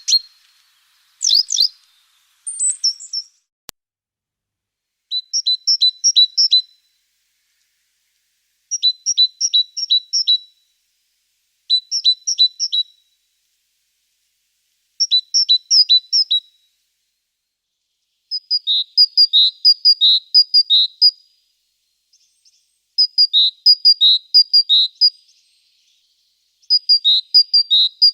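A small songbird singing short phrases of rapidly repeated high two-note whistles, one phrase every few seconds. A few different high calls come in the first seconds.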